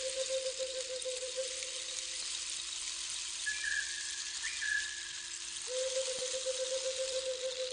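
Soft ambient background soundtrack: a steady hiss under a low drone, with two long held notes and a few short, high whistle-like notes that slide slightly in pitch.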